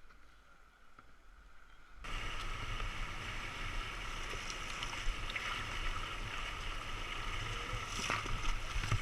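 Rushing river water around a kayak, starting suddenly about two seconds in, with a few sharp knocks near the end.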